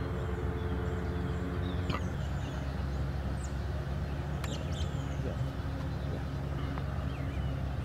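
An engine running steadily at idle, a low even hum, with scattered short bird chirps over it.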